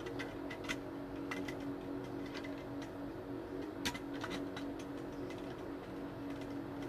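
Light, irregular plastic clicks and taps from the parts of an Imarflex stand fan's pole and base being handled and fitted together, the sharpest about four seconds in, over a steady low hum.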